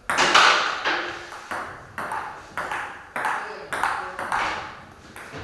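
Table tennis rally: the celluloid ball clicking off the paddles and the table in an even rhythm, about two hits a second, each with a short echo.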